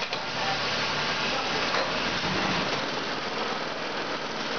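Automatic bagging machine for 25 kg woven sacks of dog food running with a steady mechanical noise.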